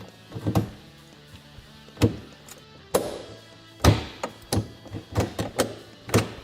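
Quick-reverse gated shifter lever on a Polaris RZR XP Turbo clunking into its gates as it is moved through the gears, about ten sharp knocks at uneven spacing, while each gear is checked after adjustment. Background music plays underneath.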